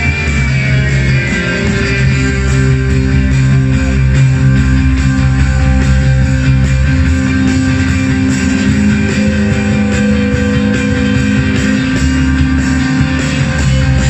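Live band of electric guitars, bass and keyboards playing an instrumental passage of long held, droning notes.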